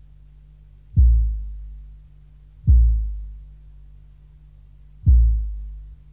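Industrial noise recording: three deep, heavy thumps about a second, two and three quarters and five seconds in, each dying away over about a second, over a steady low hum.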